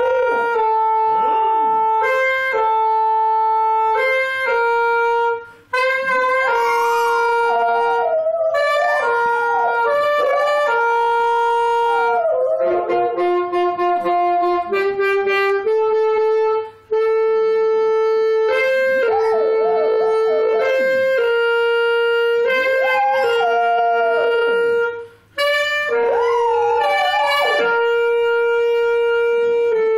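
A dog howling along to a wind instrument. The instrument plays a slow tune of long, steady notes, and the dog's wavering, gliding howls rise and fall over it in several stretches.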